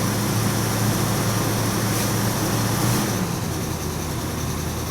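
Classic car engine idling steadily just after a cold start; about three seconds in, its note drops a little and gets quieter. The engine has a bad lifter, which the owner calls ugly.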